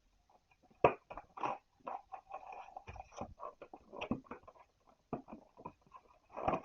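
Irregular rustling and crinkling as Pokémon trading-card packs and cards are handled, many short crackles in quick succession.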